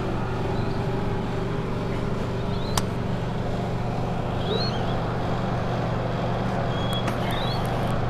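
A steady low mechanical hum, with a few faint, short, high peeps from nestling birds in the second half and one sharp click a little before the middle.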